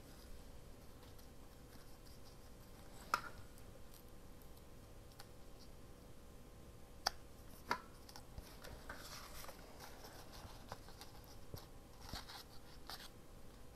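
Faint handling of paper pieces on a craft mat: soft rustling with a few sharp taps, about three seconds in and twice more around seven seconds in.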